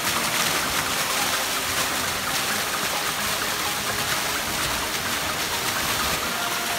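Water running down a wide water slide and pouring off its edge into the pool below, a steady rushing splash.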